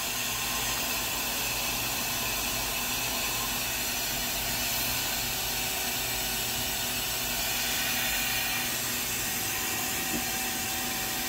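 Ganesh Cyclone 32CS CNC turning center running with a steady hum and hiss while its main-side axes are jogged through their travel.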